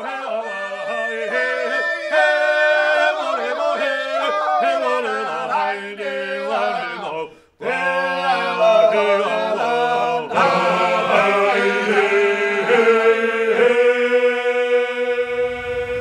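Traditional Georgian polyphonic singing by a men's a cappella group: several male voices in close harmony over a low held note. The singing breaks off for a moment about halfway, then closes on a long held chord.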